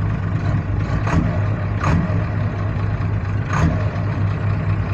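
Dump truck's diesel engine running with a steady low hum, cut by three short hissing bursts, about a second in, near two seconds and past the middle.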